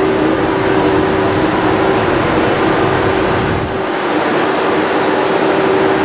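Thalys high-speed train power car standing at the platform, its cooling fans and on-board equipment giving a loud, steady whirr with a constant hum.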